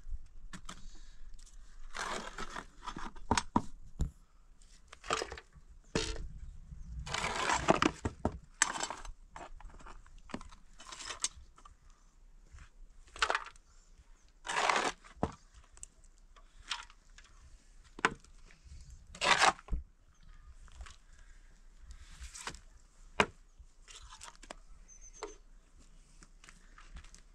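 Metal shovel scraping and scooping ash out of a cinder-block hearth into a metal basin: a string of short gritty scrapes and crunches at irregular intervals.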